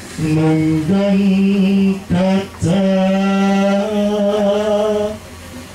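A man chanting in long, steadily held notes, stepping up in pitch once and pausing briefly between phrases, with the last note held for over two seconds.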